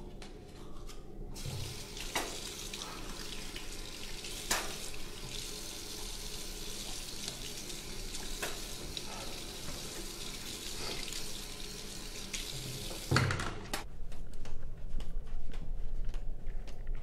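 Bathroom sink tap running, water splashing into the basin with a few sharper splashes, until it is shut off about thirteen seconds in with a thud. After it stops, a run of low thuds and light clicks.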